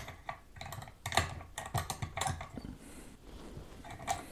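Soldering iron being set into its station holder: a handful of light clicks and knocks as the handle is fitted into the holder and handled.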